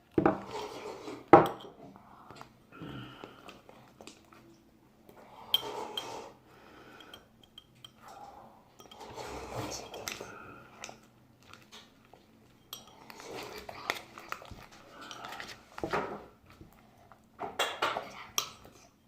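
A utensil clinking and scraping against a dish in irregular bursts, with a few sharp knocks.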